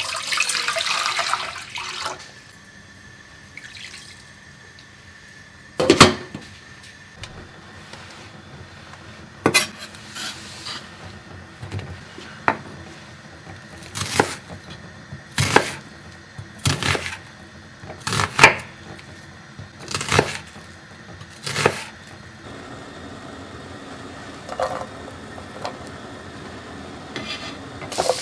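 Water pouring from a measuring jug into a stainless steel pot for about the first two seconds. Then a chef's knife chopping a red onion on a wooden cutting board: about ten separate chops, one every second or two. From about 22 seconds in, onion frying in oil in a pan with a steady sizzle, stirred near the end.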